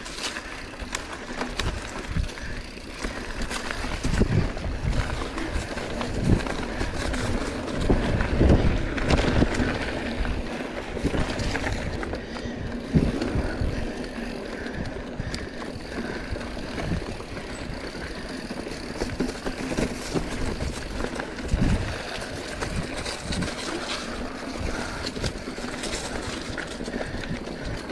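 Mountain bike rolling along a dry dirt singletrack, heard from the bike: a steady rush of tyre and wind noise, broken by irregular knocks and rattles as the bike goes over bumps.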